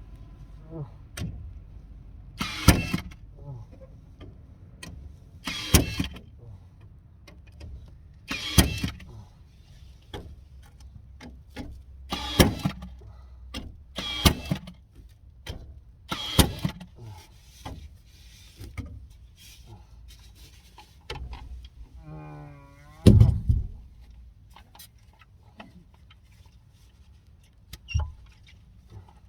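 A series of loud knocks and bangs, roughly every two to four seconds, over a low steady rumble. A short wavering pitched sound comes just before the loudest thump, which falls about twenty-three seconds in.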